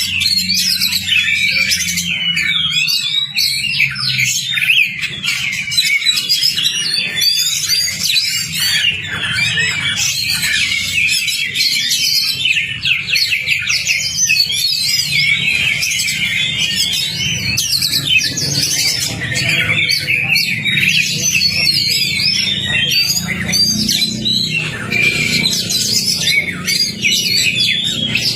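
Oriental magpie-robin (kacer) singing fast and without pause: a rapid, varied stream of whistles, trills and chattering notes. A low steady hum runs underneath.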